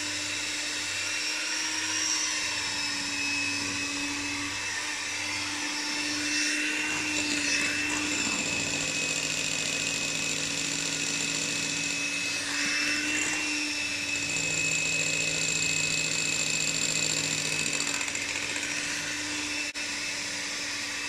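Small hand-held electric mixer running on high speed, its twin beaters whipping eggs and sugar in a glass bowl toward a foam. A steady motor whine that wavers slightly in pitch now and then.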